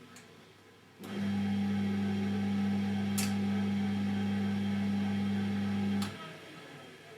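Siemens Siwamat 960 washing machine: a low electric hum switches on sharply about a second in, holds steady for about five seconds and cuts off, with a few sharp clicks, one of them as the hum stops.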